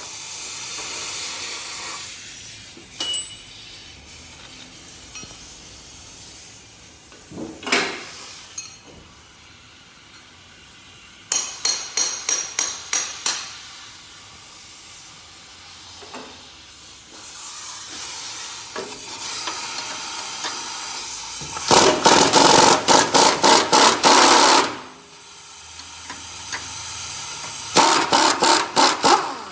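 Ratchet wrench clicking in three runs of rapid clicks, the longest about three seconds, while loosening the truck's crossmember bolts; a couple of single metal knocks come earlier.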